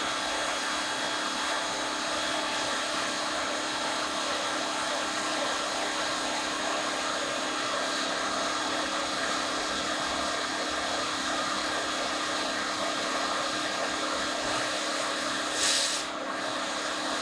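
Pressure washer running steadily while a foam cannon on its wand sprays foam, a continuous motor hum under a spraying hiss. The hiss briefly gets louder near the end.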